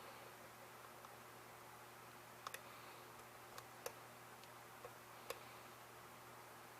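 A lock pick and tension wrench working the pins of a pin-tumbler challenge lock: a handful of small, sharp clicks scattered through a second or so in the middle, over a faint steady room hum.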